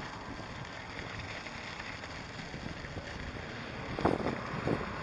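Wind buffeting the microphone of a 360 camera carried along on a moving electric unicycle: a steady rushing noise, with two short, louder gusts a little after four seconds in.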